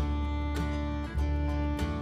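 Background music with a steady beat, bass and plucked guitar-like notes.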